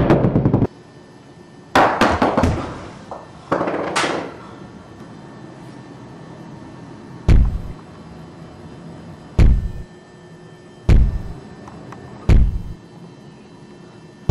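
Several loud sharp impacts in quick succession, the last with a brief hiss, then four heavy, deep thuds spaced about one and a half to two seconds apart.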